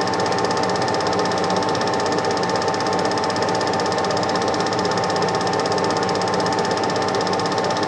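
Super 8 film projector running: a steady mechanical whirr with a fast, even clatter from the film advance and a constant hum.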